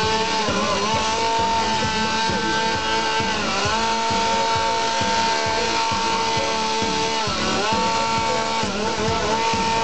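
Dolmar chainsaw running at high revs as it carves a block of ice, its pitch briefly dropping and climbing back three times.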